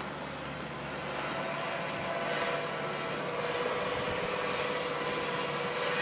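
Tractor loader's engine running steadily, a continuous drone with a steady hum through it.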